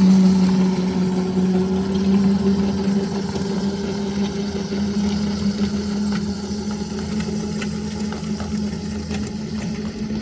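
Small engine of a backyard ride-on miniature train running at a steady pitch, with faint scattered clicks, slowly fading over the stretch.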